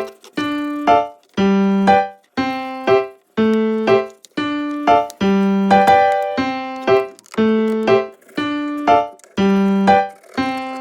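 Background music: a bouncy keyboard melody of short, separated notes, about two a second.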